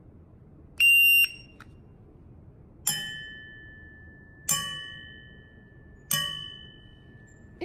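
Electronic shot timer's start beep, one high steady tone of about half a second, then three taps on the metal target plate with a pen, about a second and a half apart, each ringing and dying away as the timer registers it as a hit.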